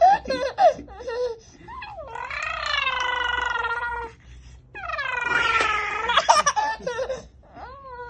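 A small child making funny voice noises: two long, drawn-out high calls with a rattly, gargling edge, among short squeaky, giggly sounds and laughter.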